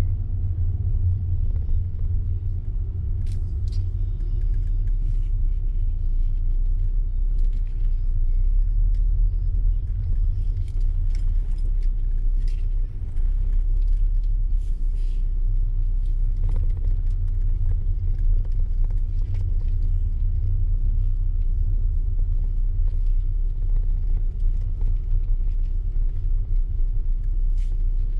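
A car driving, heard as a steady low rumble of engine and road noise, with faint scattered ticks and rattles.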